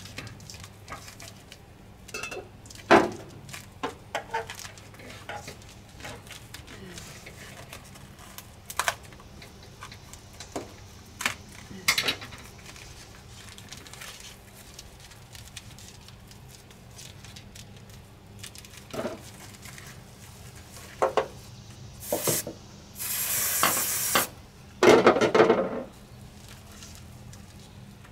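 Hands working EZ-Cool foam insulation during a van install: scattered taps, clicks and rustles, then a short hiss and a louder scraping rustle near the end.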